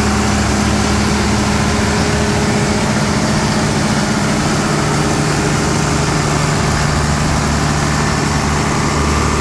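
Reconditioned Tata six-cylinder diesel engine of a 62 kVA generator set running steadily.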